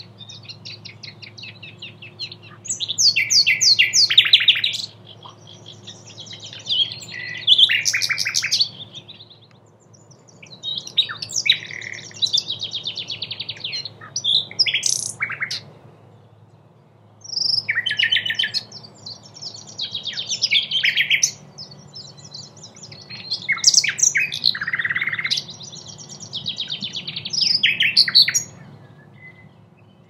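Common nightingale (Luscinia megarhynchos megarhynchos) singing: about seven varied phrases, each a few seconds long, made of fast runs of repeated notes and whistles, with short pauses between them.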